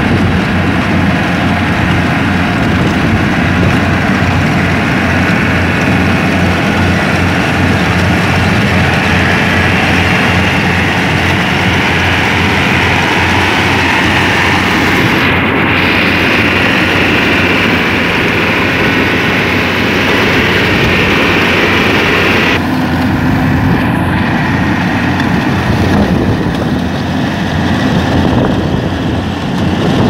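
Yanmar AW70 rice combine harvester running under load as its header cuts and gathers flattened rice, a steady loud engine-and-machinery drone. About two-thirds of the way through the higher part of the sound drops away abruptly while the low running sound carries on.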